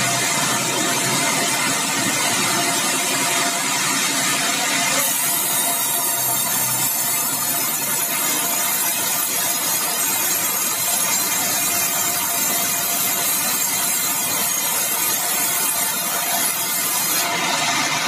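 Sawmill engine running steadily while the saw cuts a bengkirai hardwood log. The tone of the noise shifts about five seconds in and shifts back near the end.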